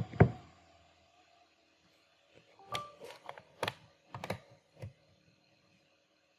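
Irregular sharp clicks and knocks of a loose cable and its connector being handled and pushed back in: a couple at the start, then a cluster of about seven in the middle.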